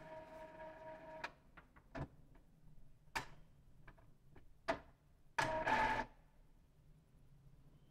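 Epson L3250 EcoTank printer mechanism running its initial ink charge, which fills the print head with ink. A steady motor whine cuts off about a second in, followed by a series of sharp mechanical clicks and knocks. A short, louder motor run comes just past the middle.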